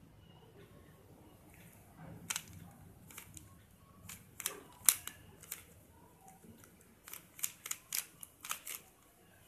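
Sharp plastic clicks of a stickerless 3x3 puzzle cube's layers being turned by hand: a few single turns, then a quick run of about six turns near the end.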